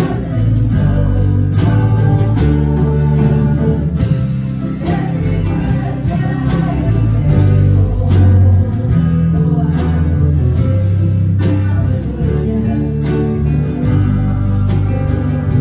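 A live praise band playing a worship song: strummed guitars, bass, keyboard and drum kit, with a man singing lead.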